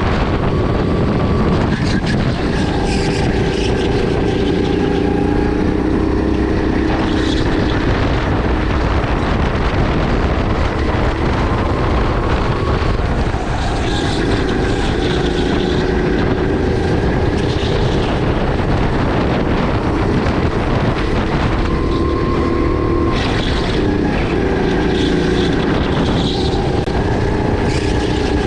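Sodi RX8 kart's 270cc LPG four-stroke engine running hard on track, its note rising and falling several times as it pulls through the laps, over steady wind and tyre noise.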